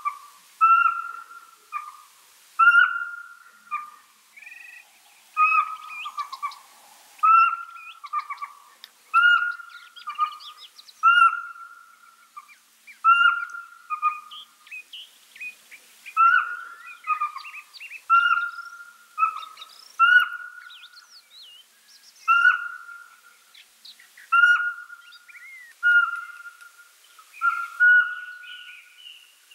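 Pygmy owl singing: a long series of short, clear whistled notes, a stronger note about every two seconds with a softer one between. Faint higher chirps are heard in the gaps.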